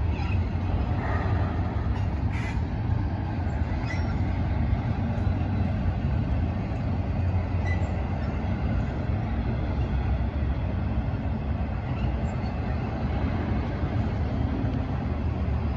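Double-stack intermodal freight train's container cars rolling over a bridge: a steady low rumble of wheels on rail, with a few faint clicks in the first few seconds.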